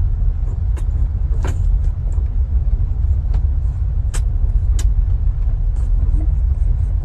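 A loud, steady low rumble with a few sharp clicks scattered through it.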